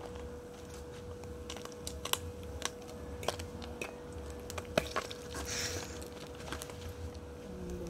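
Sprat fish frying in shallow oil in an aluminium pot, with irregular sharp clicks and clinks as a fork turns the fish and lifts them out against the pot. The loudest knock comes near the middle, followed by a brief sizzle.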